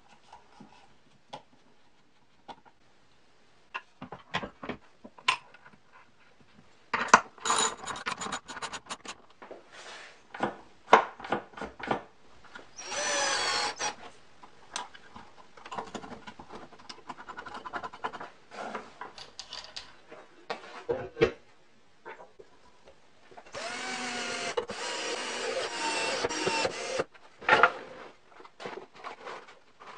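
Cordless drill running in two spells, a short one and then one of about three seconds with its pitch shifting as it works into plywood, among knocks and clicks of wooden parts being fitted and handled.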